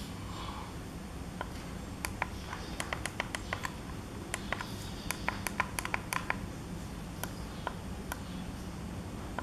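Push buttons on a Leaf e-bike LCD display clicking as a thumb presses them repeatedly, in two quick runs of several clicks a second with a few single clicks between, over a low steady hum.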